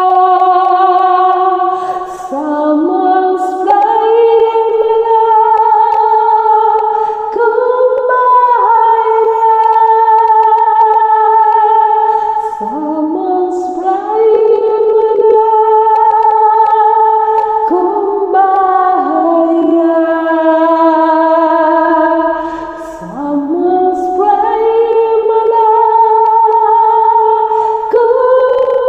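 A woman's soprano voice singing a slow, unaccompanied melody in long held notes, sliding up into several of them.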